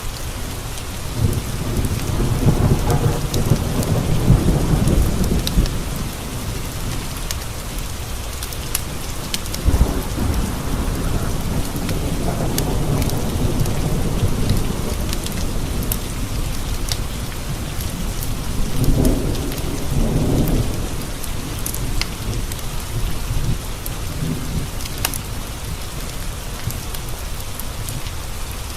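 Steady rain pattering on windows, with rolling thunder rumbling in three long swells: one starting about a second in, another about ten seconds in, and a shorter one about two-thirds of the way through.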